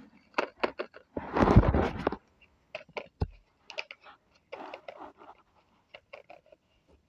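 Rustling and clicking of handling close to a phone's microphone: paper cut-outs and bedding being moved, with one louder scraping rub about a second in that lasts about a second.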